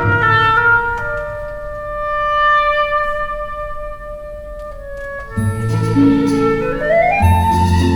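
Instrumental background music: held melody notes over a bass line, thinning out in the middle, then fuller again with a rising run of notes in the last few seconds.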